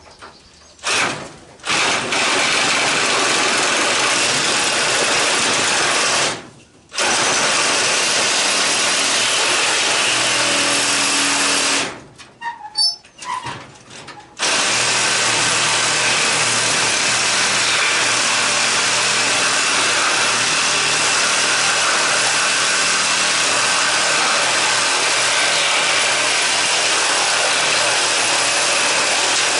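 Reciprocating saw (Sawzall) cutting through the end of an air-conditioner condenser's copper-and-aluminum coil, running at full speed in long stretches. It stops briefly about six seconds in and again for a couple of seconds around the twelve-second mark, then cuts steadily on.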